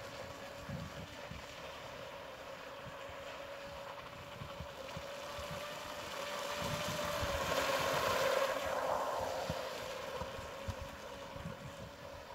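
Pro Boat Blackjack 24 RC catamaran's 3S electric motor whining steadily as the boat runs across the water. The whine grows louder for a couple of seconds past the middle as the boat passes nearer, then fades. Wind buffets the microphone.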